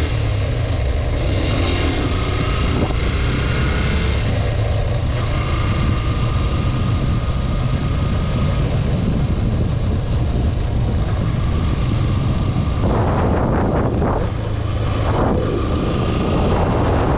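Motorcycle engine running steadily at road speed, with wind rushing over the microphone. The wind rush grows louder about thirteen seconds in.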